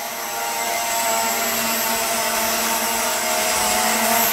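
Holy Stone HS440 mini quadcopter's propellers and motors buzzing steadily in flight as it flies its automatic circle-fly manoeuvre, growing a little louder about a second in.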